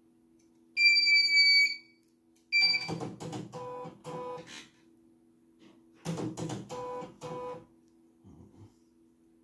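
Electronic beeps from a CNY E900 embroidery machine's control panel: one long high beep, then a short one, followed twice by a short electronic jingle with two tone pulses. A steady low electrical hum from the powered machine runs underneath.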